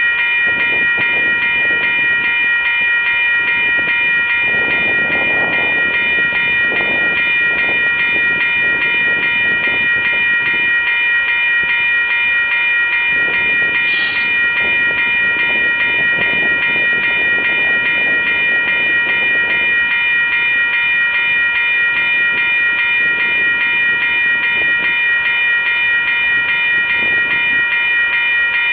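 A railroad grade-crossing bell ringing rapidly and unbroken as a BNSF freight train with its diesel locomotives rolls slowly past, with rumble from the locomotives and wheels underneath.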